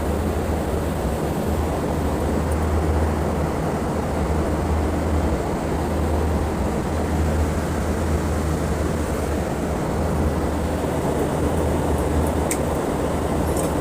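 Steady running noise of VFD-driven pump motors: a deep, constant hum under an even mechanical rush.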